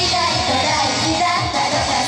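Upbeat J-pop idol song performed live, with a loud backing track and young female voices singing.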